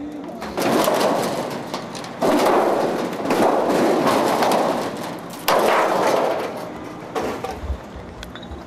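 Tornado-damaged sheet-metal roof panels being handled, rattling and scraping in several long, loud stretches with knocks in among them.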